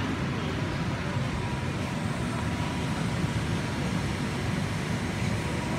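Steady low rumble of the electric blower fans that keep inflatable bouncy castles inflated, with a faint constant whine.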